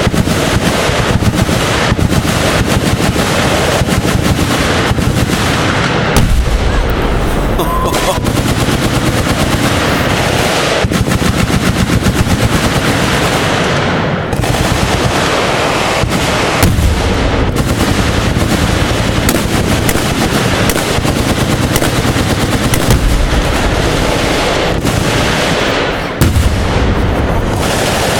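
Sustained automatic gunfire from machine guns on a firing line: rapid, overlapping bursts with barely a break.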